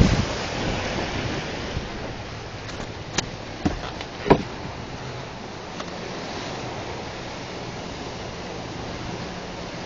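Steady rush of wind and water from a sailing yacht under way, with three sharp knocks about three to four seconds in.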